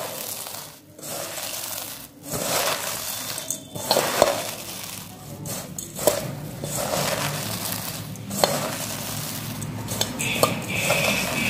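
Hands squeezing and crushing freshly dry-roasted khoi (popped rice) in a stainless-steel bowl: crisp crunching and rustling of the grains, with many short knocks against the metal bowl.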